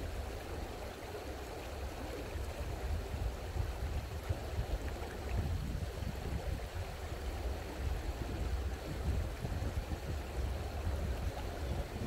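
Stream water flowing: a steady, even rushing over a low rumble.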